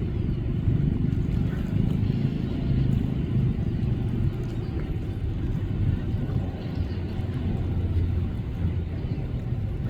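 Steady low rumble of a large passenger speedboat's twin Volvo Penta engines running under way, with water and wind noise.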